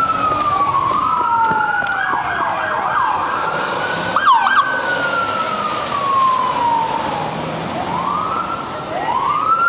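Police car sirens wailing, slow sweeps falling and rising in pitch, with two sirens overlapping at times. Short bursts of fast warbling yelp come in about two to three seconds in and again around four and a half seconds, and the wail rises twice near the end.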